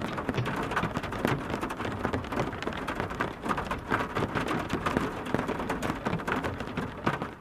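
Heavy rain falling steadily, a dense patter of many drops striking a surface.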